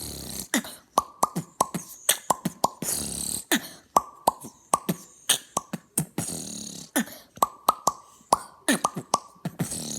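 Beatboxer making a popping sound with the mouth, repeated quickly at a few pops a second. Each pop is a sharp click, many with a brief, slightly falling pitched ring, and a few breathy hisses fall between them.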